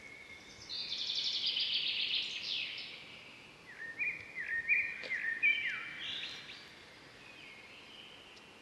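Wild birds calling: a fast trill for about two seconds, then a string of short whistled notes that jump up and down in pitch, fading out over the last couple of seconds over a soft background hiss.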